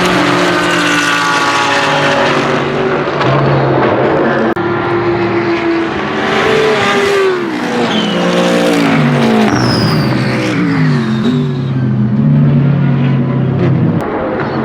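BMW M6 GT3 race car's twin-turbo V8 running at racing speed, its pitch holding and then dropping in a series of steps as it downshifts for a corner, about six seconds in, before pulling again. The sound changes abruptly a couple of times.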